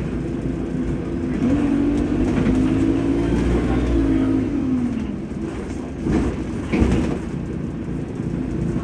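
Single-deck bus heard from inside the passenger saloon: engine and road rumble, the engine note rising as the bus accelerates about a second and a half in, then easing off around four to five seconds. Two short thumps come near the end.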